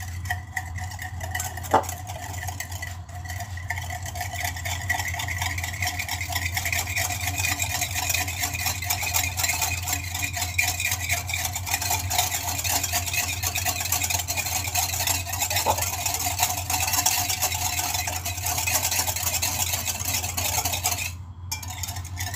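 Wire whisk beating eggs, milk and sugar in a glass bowl: a rapid, steady ticking of the wires against the glass, with a steady low hum underneath. The whisking stops briefly near the end.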